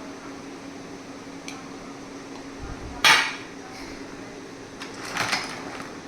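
Hard objects knocking and clattering: a light click, then one loud sharp clatter about three seconds in and a cluster of smaller knocks near the end, over a steady low hum.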